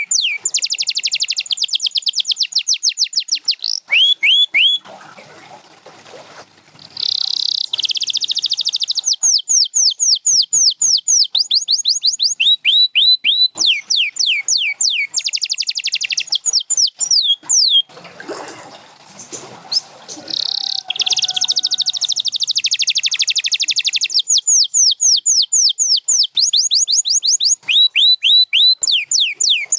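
Canary singing: long, loud trills made of quick downward-sweeping whistled notes repeated many times a second, broken by two short pauses, about five seconds in and about eighteen seconds in.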